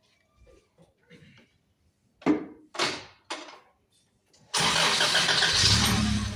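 A few short knocks, then a car engine is cranked and starts, a loud rush settling into a steady idle near the end.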